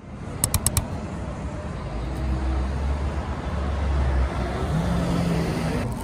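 Street traffic noise with a motor vehicle's engine running close by, its low hum strongest through the middle. About half a second in there is a quick run of four sharp clicks.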